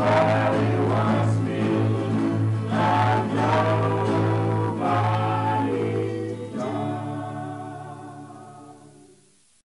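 Old tape recording of a male vocal group singing in harmony, ending on a long held final chord that fades away over the last few seconds and stops just before the end.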